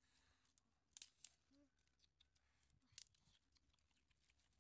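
Near silence, broken by a few faint, sharp wooden clicks as dry sticks are handled, two stronger ones about a second in and about three seconds in.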